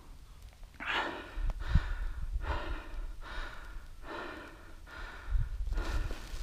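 A man breathing hard close to the microphone, a breath about every second and a half, with a few low thumps.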